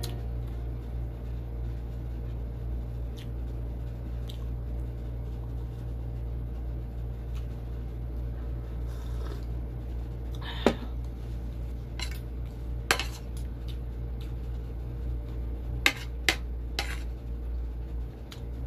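Spoon and fork clinking against a ceramic plate and dishes, a handful of sharp clinks in the second half, over a steady low hum.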